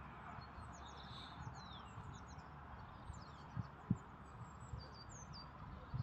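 Small songbirds chirping and twittering faintly over a steady outdoor hiss, with two soft low thumps a little past the middle.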